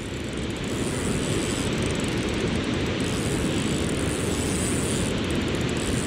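Spinning reel's drag ratcheting as a hooked fish pulls line off it. It sets in and swells over the first second, then runs as a fast, steady buzz.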